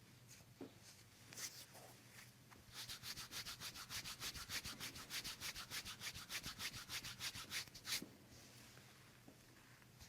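Hands rubbing briskly back and forth, a fast, even run of scratchy strokes about six a second. It starts a few seconds in after a few faint scrapes and stops with a sharper stroke near the end.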